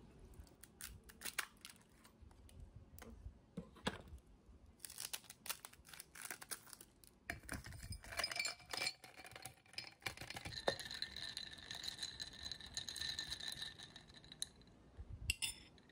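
Lime pieces squeezed by hand over a drinking glass give a few soft clicks. Then ice cubes pushed out of a plastic ice bag clatter into the glass, and a metal spoon stirs the ice, clinking against the glass and leaving it ringing.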